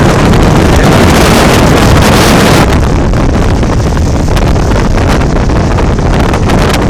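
Blizzard wind buffeting the microphone: a loud, steady rumbling roar with hiss on top. The hiss eases after about three seconds while the low rumble carries on.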